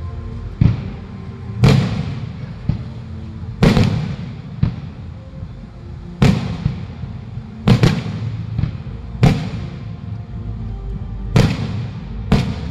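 Aerial fireworks bursting: about eleven loud bangs at uneven gaps of one to two seconds, each fading away quickly, over faint background music.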